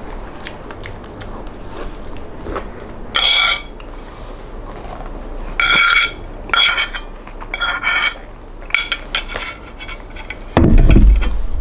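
Metal spoon scraping and clinking against a ceramic plate in several short ringing strokes as the last of the food is scooped up. Near the end comes a heavier thump, the loudest sound, as the plate is set down on the wooden table.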